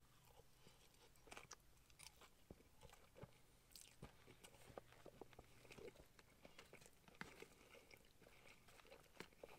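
Faint chewing of a mouthful of fried chicken and chips, with soft, irregular crunches.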